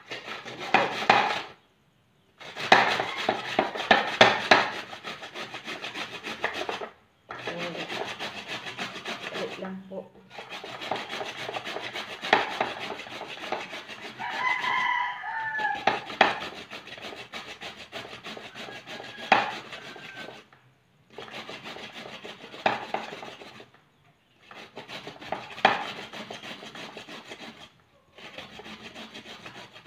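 A peeled carrot rubbed up and down a metal box grater: a fast rasping scrape in runs of a few seconds, broken by short pauses.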